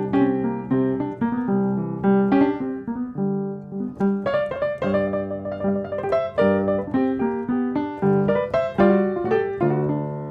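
Background piano music: a flowing run of notes over held low notes.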